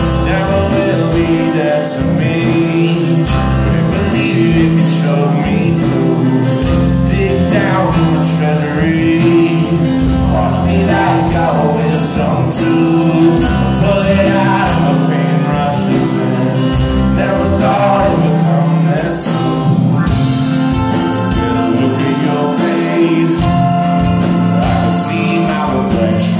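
Reggae-rock band playing live: acoustic guitar, bass guitar, keyboard and drums, heard from the audience.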